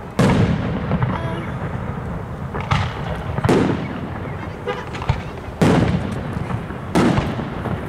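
Aerial firework shells bursting overhead: about five sharp booms spread over eight seconds, each trailing off in a rumble.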